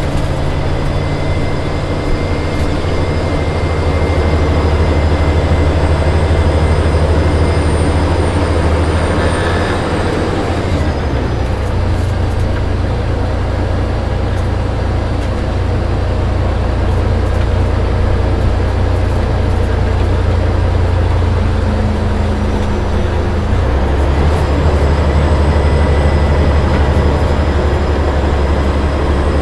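A 1996 MCA Marathon high-deck coach with a Detroit Diesel Series 60 14-litre six-cylinder turbo diesel, driving, heard from inside the passenger cabin. The engine's low drone steps to a different pitch about ten seconds in and again near the end, with a faint high whine above it.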